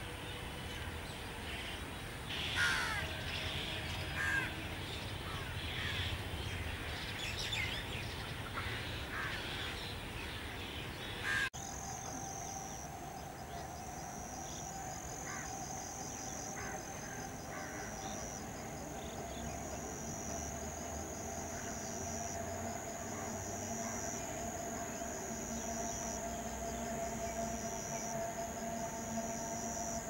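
Crows cawing among other bird calls. After a sudden cut about eleven seconds in, a steady whine from a Delhi Metro Pink Line train running along an elevated viaduct, with a high pulsing trill over it.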